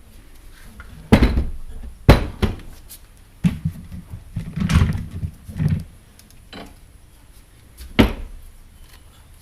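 Sharp knocks and clunks of tools and trolling-motor parts being handled on a workbench: three loud knocks about one, two and eight seconds in, with rattling and scraping between them.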